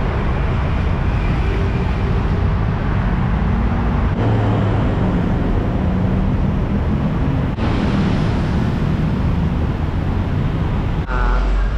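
Busy city street noise: road traffic running past with a steady low rumble and hiss. The noise changes abruptly three times, and a short warbling pitched sound comes near the end.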